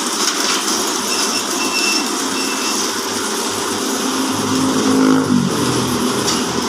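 Horizontal band sawmill driven by a 5 HP electric motor, running steadily, with a brief dip and rise in pitch about four to five seconds in.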